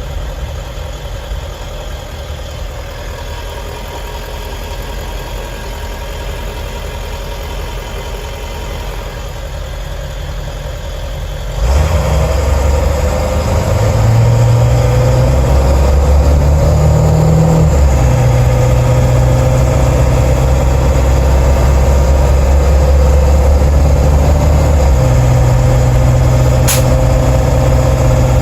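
7.3 Powerstroke V8 turbo-diesel running, heard from inside the van's cab beside the engine cover while driving. About twelve seconds in it gets suddenly louder and deeper and stays so, with one sharp click near the end.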